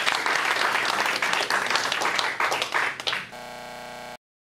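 Audience applauding, a dense steady patter of many hands clapping. About three seconds in the clapping cuts off into a short steady buzzing tone, which stops abruptly just before the end.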